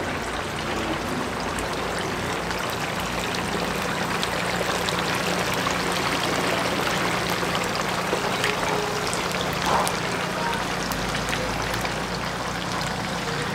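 Whole chickens deep-frying in oil: a steady hissing sizzle flecked with small crackles and pops.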